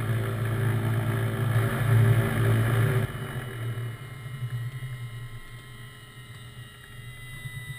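Twin piston engines of a Piper PA-31-350 Navajo Chieftain idling, then shut down about three seconds in: the engine note drops away suddenly and the low hum winds down to a stop near the end. A faint high whine slowly falls in pitch as it fades.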